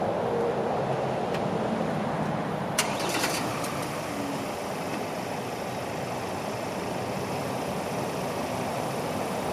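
Pickup truck stuck in mud, its engine running while the rear wheels spin: a steady noisy rumble, with a sharp click and a few smaller ticks about three seconds in.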